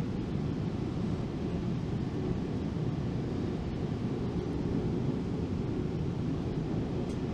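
Steady rumble of a GO Transit commuter train in motion, heard from inside the passenger coach.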